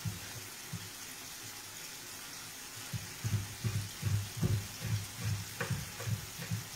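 Knife chopping parsley on a wooden cutting board: soft, quick thuds, about three a second, starting about three seconds in. A faint, steady sizzle from the frying pan runs underneath.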